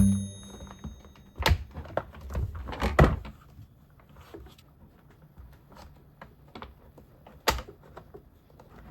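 Hard plastic parts of a cyclone vacuum cleaner knocked and clicked while it is being taken apart: a few separate thunks and clicks with quieter small ticks between, the sharpest near the end.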